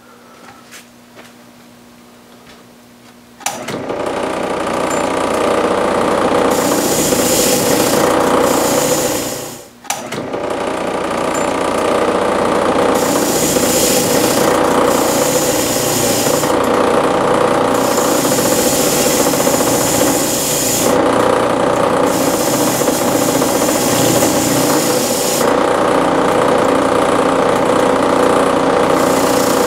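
An electric power tool starts about three and a half seconds in and runs steadily while it cleans the old oil-pump bolts, with a harsher hiss that comes and goes every second or two and a brief drop in the sound near ten seconds in.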